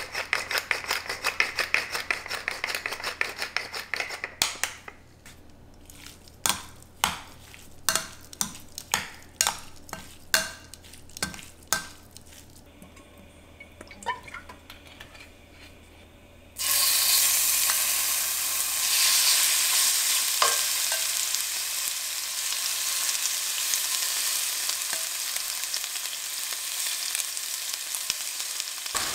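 Fine rapid clicking, then a run of sharp clicks about two a second. About 17 seconds in comes a sudden loud, steady sizzle: seasoned chunks of raw chicken breast frying in hot oil in a cast-iron skillet.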